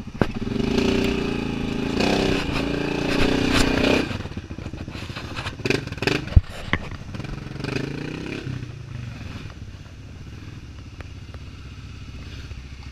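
ATV engine revving hard under load as the quad works over concrete steps, with several sharp clunks of the machine knocking against the concrete midway, then settling to a steady idle.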